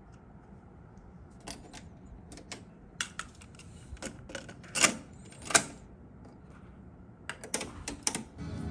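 Sony TC-RX55 cassette deck being loaded by hand: a series of plastic clicks and clacks as the cassette door opens, the tape is pushed in and the door is shut, with two louder clacks about halfway through. Near the end comes a quick run of clicks as the buttons are pressed and the transport engages for play.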